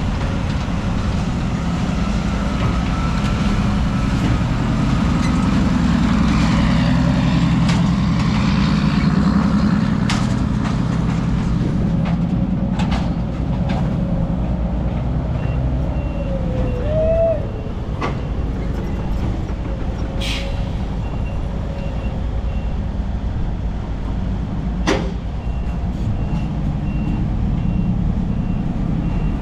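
Heavy diesel dump trucks with loud exhausts running steadily, with a deep rumble. A few short sharp clicks and hisses cut in through the middle.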